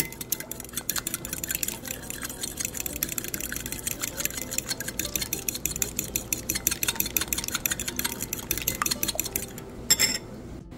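A metal fork beating eggs in a glass bowl: rapid, continuous clinking of the tines against the glass.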